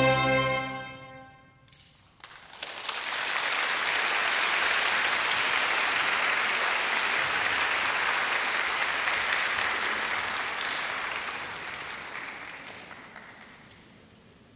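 A wind band's closing chord rings and dies away. About two seconds in, audience applause breaks out, holds steady, then fades away near the end.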